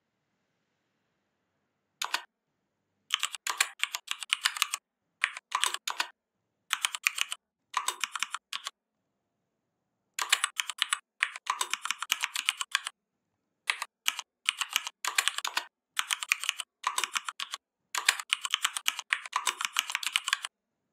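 Typing on a computer keyboard: quick runs of keystrokes broken by short pauses, starting about two seconds in.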